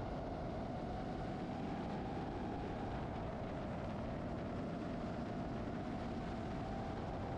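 DJI FPV drone's motors and propellers whining steadily in flight, heard from the camera mounted on the drone, with a rush of air noise underneath.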